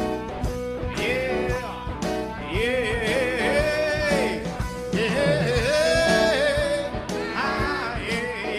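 Singing with strummed guitar accompaniment, the voice holding long notes that waver.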